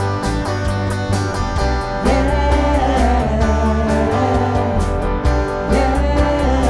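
A worship band playing a slow contemporary praise song with guitar. A singer comes in about two seconds in and holds long notes.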